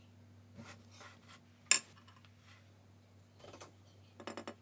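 A paintbrush being set down and handled against a watercolour palette tray: a few light knocks, one sharp click a little under two seconds in, then a quick rattle of small clicks near the end.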